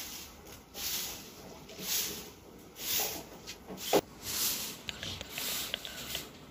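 Long-handled grass broom sweeping a dirt floor, about one swish a second, with a short, sharper knock about four seconds in.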